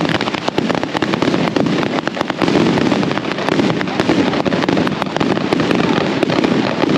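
Dense barrage of firecrackers going off, many sharp bangs a second with no pause between them.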